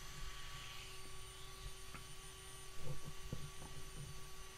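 Dremel rotary tool with a small drum sanding wheel whining as it grinds the walnut grip, fading out about a second in. Then a steady hum, with a few soft handling knocks a little before the middle.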